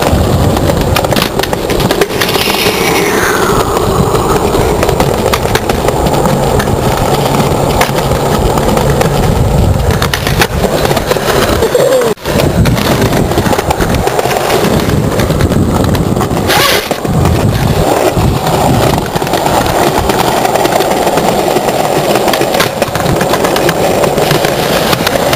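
Skateboard wheels rolling loudly over stone paving slabs, a continuous rumble, with a sharp clack of the board about two-thirds of the way through.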